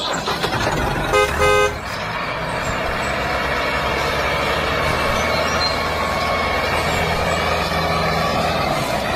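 Tractor engine running steadily with a low rumble, with two short horn toots about a second in.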